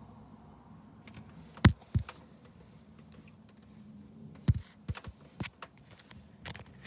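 Irregular sharp knocks and clicks: two loud ones just under two seconds in, then a quick cluster of them from about four and a half seconds on.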